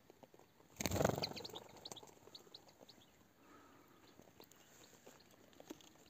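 A European goldfinch is released from a hand. There is a brief, loud flutter of wings close by about a second in, followed by a quick run of short, high chirping calls.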